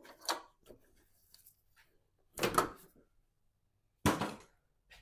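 Three short clunks and scrapes of parts being worked loose by hand around a truck's radiator, the loudest about halfway through and another sharp knock near the end.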